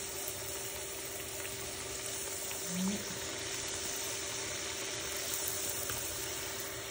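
Dough pastries deep-frying in a pan of hot oil, with a steady bubbling sizzle.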